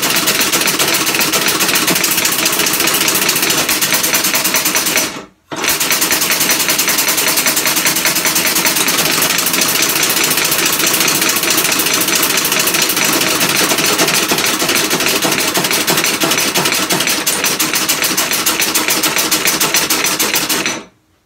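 Homemade five-cylinder compressed-air engine running fast on shop air, a loud, very rapid chatter of exhaust pulses. The air is cut off about five seconds in and the engine starts again at once, then stops shortly before the end.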